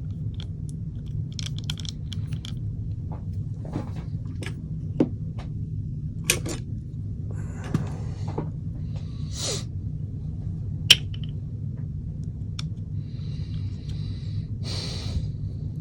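Small clicks, taps and brief scrapes of airsoft gearbox parts being handled while the gears are greased, over a steady low hum. One sharp click about 11 seconds in is the loudest sound.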